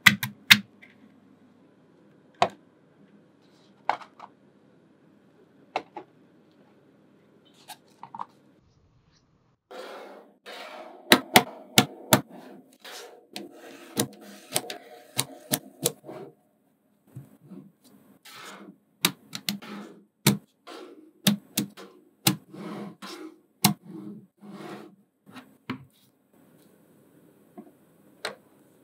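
Small magnetic balls clicking as they snap onto one another: a few scattered sharp clicks at first, then a busier stretch of rapid clicks and rattling from about ten seconds in.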